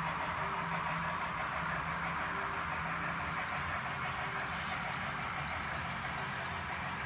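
HO scale model steam locomotive running on the layout with a freight train: a steady rolling noise with a faint low hum that comes and goes.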